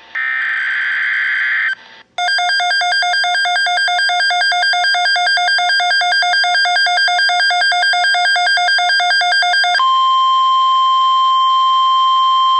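Emergency alert sequence on a Midland HH54VP weather alert radio receiving a NOAA Weather Radio tornado watch. It opens with a screechy digital SAME header burst. About two seconds in, the radio's own watch alert tone starts: a loud, rapidly pulsing beep with a harsh buzzy edge that lasts several seconds. Near the end this switches to the steady single-pitch 1050 Hz NOAA Weather Radio alert tone, which signals that the spoken watch message is about to follow.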